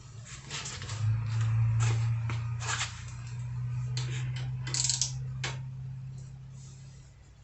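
Metal hand tools and parts clicking and clinking as they are handled, several short clicks spread through, over a low steady hum.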